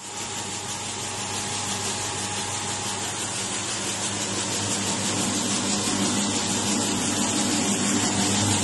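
Electric vertical feed mixer running: a steady motor hum under an even hiss, slowly growing louder.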